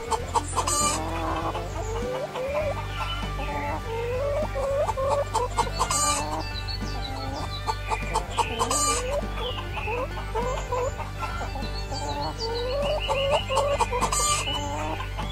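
Domestic hens clucking, a continuous run of short calls, many rising in pitch, with a few sharp clicks among them.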